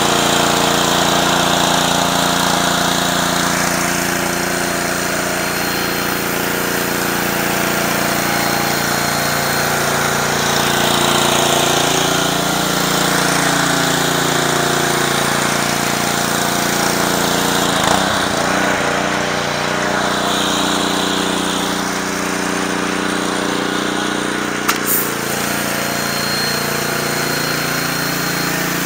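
Pressure washer's Honda GCV190 single-cylinder engine running steadily under load, with the steady hiss of high-pressure water spraying from a surface cleaner onto concrete.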